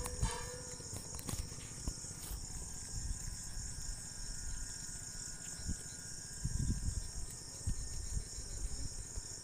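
Steady high-pitched insect chorus, with a few faint low knocks and rustles from a steering box being handled and turned over a tarpaulin.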